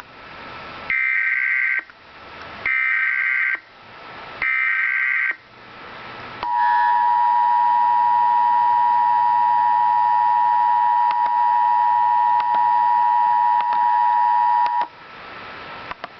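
Emergency Alert System broadcast: three short bursts of screechy digital SAME header data, about a second each, then the steady two-tone attention signal held for about eight seconds before it cuts off. Together they announce an emergency alert, here a severe thunderstorm warning.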